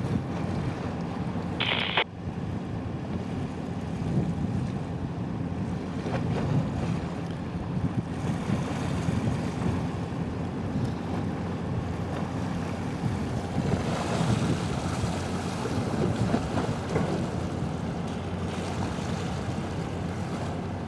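Wind buffeting the microphone over the steady low rumble of a small general cargo ship moving slowly close by, with water sounds. A brief high-pitched sound about two seconds in.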